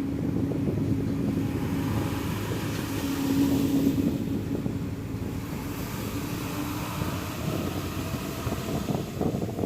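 A moving bus: engine and road rumble, with a steady hum that swells about three seconds in and fades away after about seven seconds.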